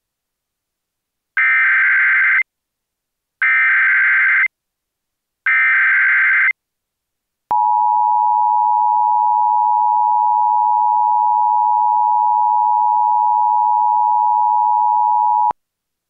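Emergency Alert System signal opening a Civil Emergency Message: three one-second warbling data bursts of the digital header, then a steady attention tone held for about eight seconds that cuts off sharply.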